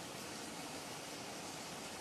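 A faint, steady, even hiss with no tones or rhythm in it.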